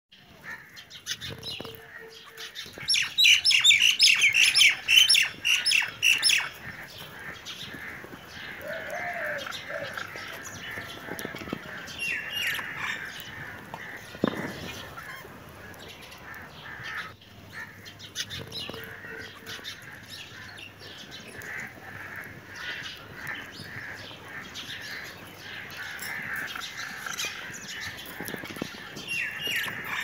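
Budgerigars chattering and warbling, with a loud run of rapid, high chirps about three to six seconds in, then steady softer chatter with occasional squawks.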